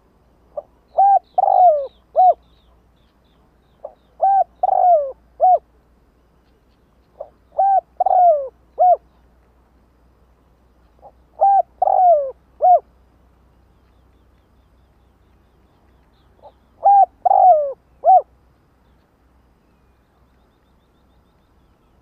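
Spotted dove cooing: five short phrases of three or four notes each, the middle note sliding down in pitch, spaced about four seconds apart.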